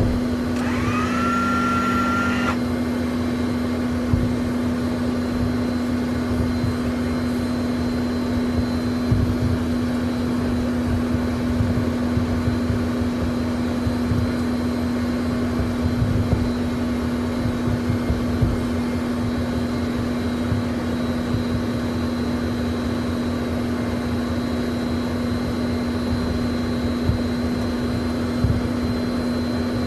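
Learjet cabin while taxiing to the runway: a steady jet-engine hum with a constant low drone and a faint high whistle, over uneven low rumbling and light bumps from the taxi. A short rising whine climbs and levels off in the first two seconds, then cuts off suddenly.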